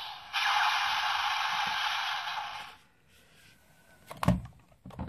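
Sengoku Driver toy belt playing an electronic sound effect through its small speaker, the tail of its finisher sound, a loud hiss that cuts off about three seconds in. About a second later, a sharp plastic knock as the toy is handled.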